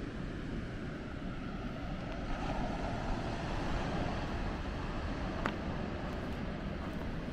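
Wind buffeting the microphone over the steady rush of Atlantic surf, with a single sharp click about five and a half seconds in.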